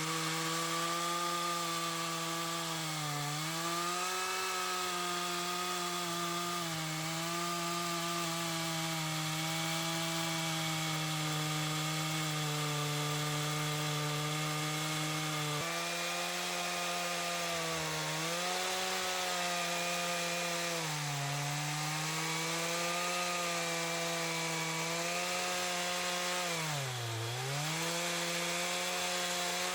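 A two-stroke chainsaw runs at high revs, cutting into a log to hollow it out. Its pitch dips briefly several times as it takes load in the wood.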